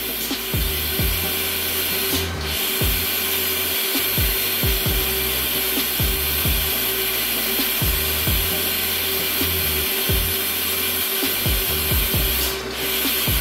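Background lo-fi hip-hop music with a kick drum and a bass line, over a steady hiss.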